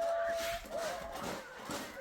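Voices in the background, one held on a single pitch near the start.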